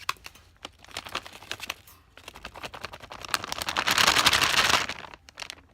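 Packaging being rummaged through and crinkled by hand: a run of crackles and clicks, then a louder, denser crinkling rustle about three seconds in that stops shortly before the end.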